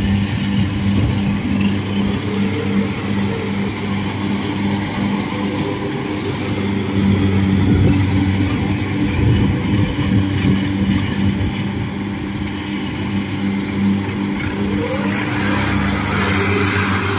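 Kubota DC-70 rice combine harvester running steadily while it cuts and threshes, its diesel engine holding a constant speed with a steady drone. Near the end a harsher, hissier noise rises over it.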